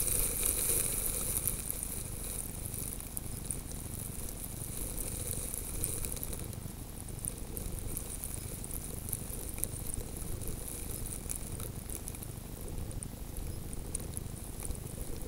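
Wind rumbling on the microphone of a camera lying in the snow, with a fine crackling of many small ticks from blowing snow. There is no engine sound.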